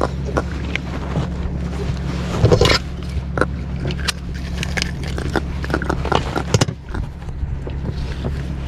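Clicks, scrapes and knocks of a caught fish being handled in a lip grip and unhooked from a jig's assist hook, with a louder scrape about two and a half seconds in, over a steady low hum.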